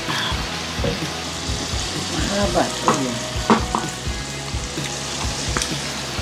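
Meat and sausages sizzling steadily on a samgyupsal grill pan over a portable gas stove, with a few sharp clicks of tongs and chopsticks against the pan.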